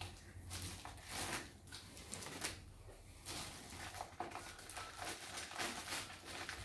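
Clear plastic bag crinkling and rustling in irregular short bursts as it is handled.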